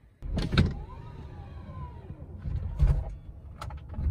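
Tesla Model X's power liftgate closing: a knock, then an electric motor whining with a pitch that rises and falls as the gate lowers, then a heavy thump near three seconds in as it shuts, and a short click after.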